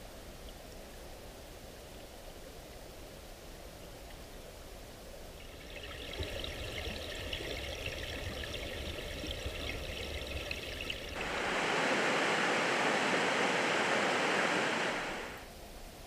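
Creek water running over a gravel and cobble streambed, a steady rush that grows louder about five seconds in, louder still from about eleven seconds, and drops back near the end.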